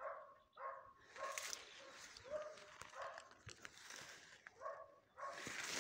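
Hunting dog barking repeatedly, faint and distant, several short barks with pauses between them. A rush of noise comes in near the end.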